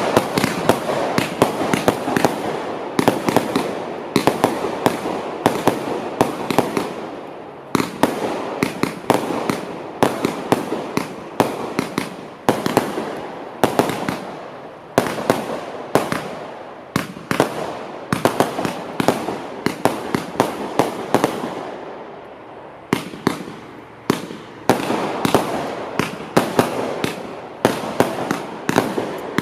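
Startrade Feuerzauber compound firework battery firing: a rapid, continuous series of shots and bursts, several a second, with a few brief lulls.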